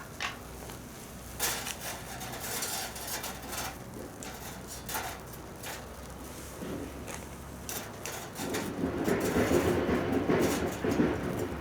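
Scattered clicks and knocks of cookware being handled over a campfire, then a louder spell of dense crackling in the last few seconds.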